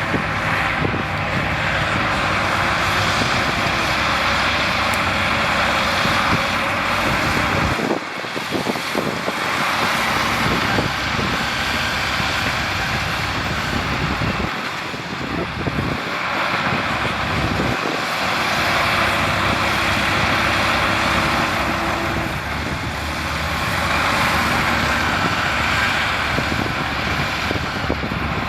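Heavy diesel earthmoving machinery running hard, a steady engine drone under a loud rushing noise. The sound dips briefly about eight seconds in and again a little past the middle.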